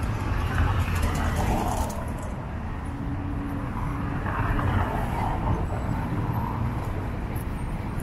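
City street traffic: cars driving past with a steady low rumble that swells and eases.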